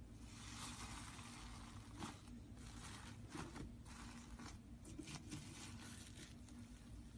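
Slime being worked by hand, giving a sticky crackling with small pops and clicks that swells and fades every second or two.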